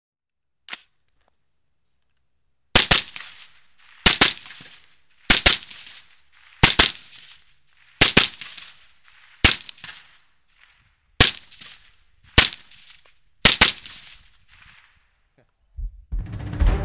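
Suppressed 5.56 AR-15-style rifle, fitted with an Innovative Arms Interceptor 556 QD suppressor, fired nine times in slow semi-automatic fire, about one shot every second and a half, each shot trailing off briefly. A single faint click comes before the first shot, and music starts near the end.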